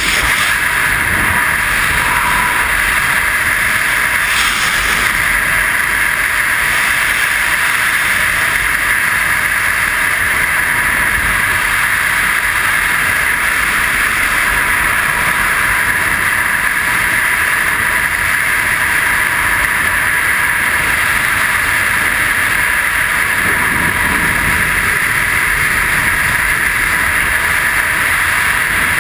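Steady rush of freefall air over a helmet-mounted camera's microphone, an even, unbroken wind roar.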